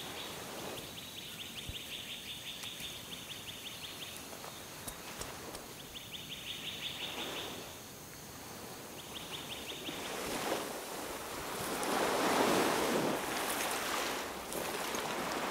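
Waves washing on a beach, swelling louder from about ten seconds in, with an insect trilling in rapid high pulses in three bursts over the first ten seconds.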